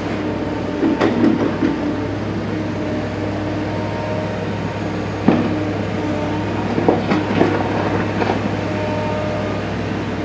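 Caterpillar M316D wheeled excavator's diesel engine running steadily while it works, with a few sharp metallic clanks and knocks from the bucket in broken ground and rubble, the loudest about five seconds in.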